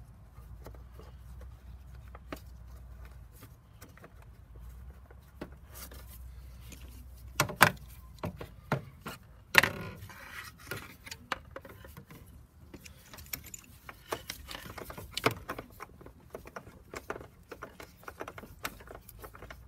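Ratchet wrench and socket clicking irregularly as a bolt is run in, with two loud sharp metal clinks about halfway through.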